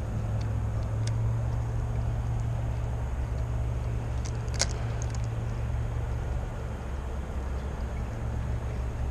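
Steady low engine drone from distant machinery, with a few faint clicks and one sharper click about four and a half seconds in.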